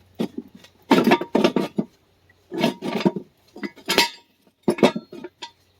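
Metal clinking and knocking in several quick clusters, like steel hand tools and parts being handled and set down against one another.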